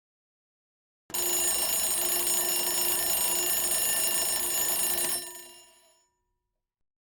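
An alarm bell rings loudly for about four seconds, starting about a second in, then dies away over the next second.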